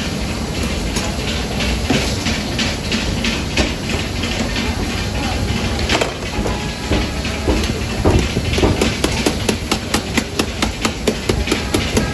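Mutton karahi sizzling hard in a steel karahi wok while a metal ladle scrapes and clanks against the pan. About two-thirds of the way in the clanking settles into a fast, regular beat of about three strikes a second.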